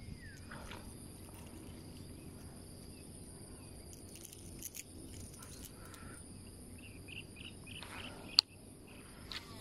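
Insects chirping in a steady, high-pitched drone, with one sharp click near the end as the baitcasting reel is handled.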